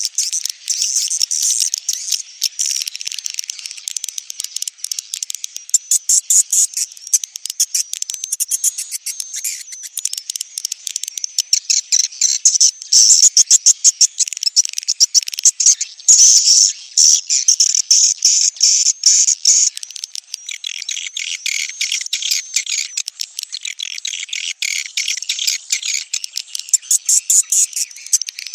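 Swiftlet calls: a dense stream of rapid, high-pitched chirps and twitters, loudest through the middle, with a lower chirping layer coming in about two-thirds of the way through. This is the kind of recorded call track played in swiftlet houses to lure edible-nest swiftlets.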